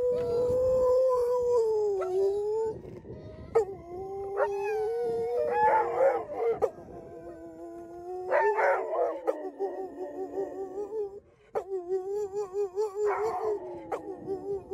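Rottweiler howling: a string of long, wavering howls with short breaks between them, at times with two voices overlapping. The later howls wobble quickly in pitch.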